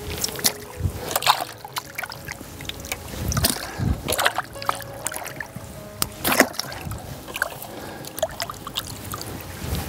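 Live fish being scooped by hand out of a bowl of water and dropped into a bucket of water, with irregular splashes and sloshing of various sizes as hands and thrashing fish hit the water.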